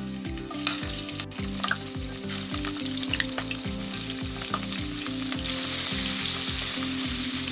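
Tiger prawns sizzling as they fry in hot mustard oil in a kadai, being turned with a wooden spatula. The sizzle grows louder about five and a half seconds in as the pan fills with prawns.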